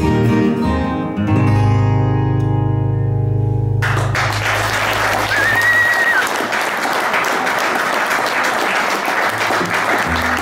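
Acoustic guitars and electric bass let the final chord of a song ring out and fade. About four seconds in, audience applause starts suddenly and carries on, with one short whistle from the crowd over it.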